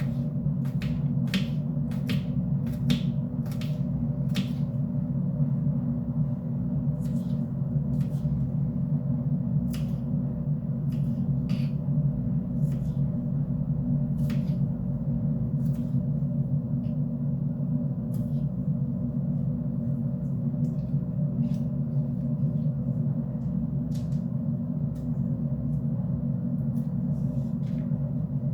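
Steady low hum with irregular sharp clicks and taps over it, the clicks coming quickly in the first few seconds and scattered after that: the sound of kitchen work.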